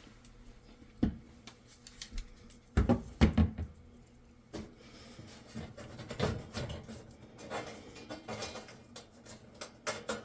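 Scattered knocks and clunks of an oven burner cover being set into its slots and shifted into place, the loudest cluster about three seconds in.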